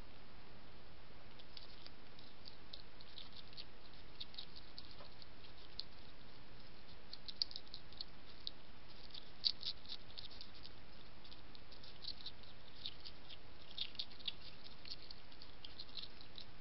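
European hedgehog chewing dry kitten biscuits: runs of quick, crisp crunching clicks in clusters, over a steady background hiss.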